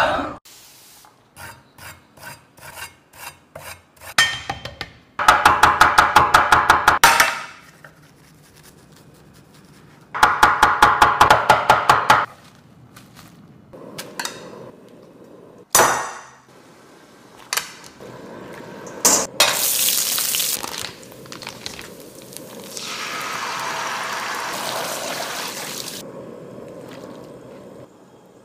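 Kitchen cooking sounds: two bursts of rapid, even strokes, about eight a second, then scattered clinks and knocks of utensils, and near the end a steady hiss of a pan of broth cooking on the stove.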